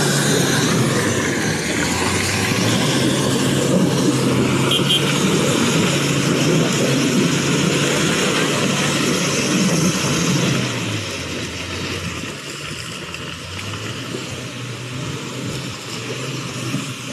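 4x4 pickup engine running and revving up and down as it drives through deep mud. It turns quieter about eleven seconds in.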